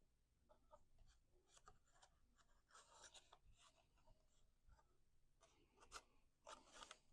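Faint rustling, rubbing and light ticks of cardstock being handled and folded, with a longer, louder rustle near the end.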